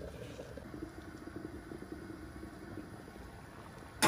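Steady low rumble and hiss of gas-stove burners with pots cooking under a lid, and a sharp clack right at the end.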